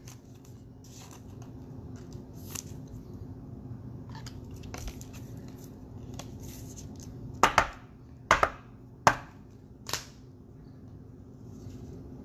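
Trading cards and a hard plastic magnetic card holder being handled, with a handful of sharp plastic clicks in the second half as the case is snapped shut and set down.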